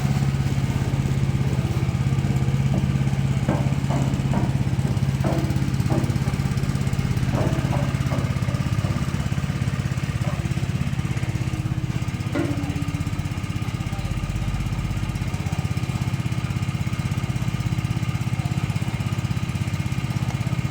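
Small engine-driven machine running steadily at a constant speed, with a few short knocks between about three and eight seconds in and one more near twelve seconds.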